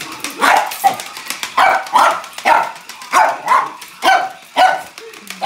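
Small dog barking repeatedly, about two sharp barks a second.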